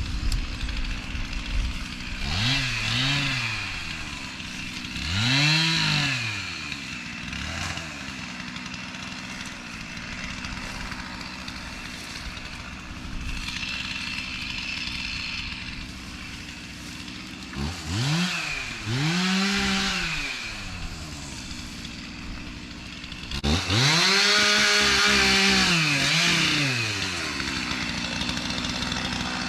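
Two-stroke chainsaw idling and being throttled up in repeated bursts while cutting brush, its pitch rising and falling back each time. The longest run at full throttle, about four seconds, comes near the end.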